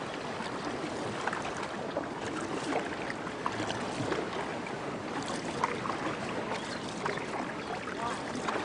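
Water splashing and washing past a canoe as it is paddled with a wooden paddle, the blade dipping into the water at irregular intervals.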